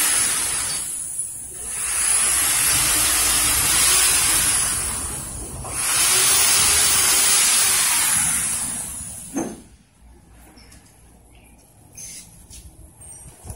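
Loud, even hissing in three long stretches with short breaks, dying away about three quarters of the way through; after it only faint small handling sounds remain.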